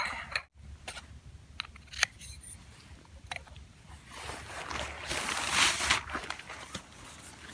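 A few light clicks and knocks, then heavy nylon fabric rustling and swishing for about two seconds as a hammock is pulled out of its nylon stuff sack, loudest near the middle of that pull.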